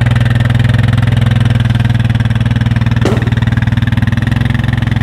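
Four-wheeler ATV engine idling steadily with a fast, even pulse, and a single short click about three seconds in.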